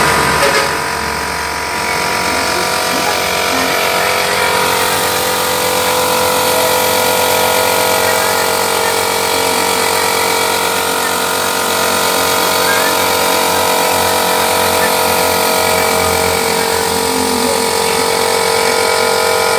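A steady machine drone with constant whining tones that hold the same pitch throughout.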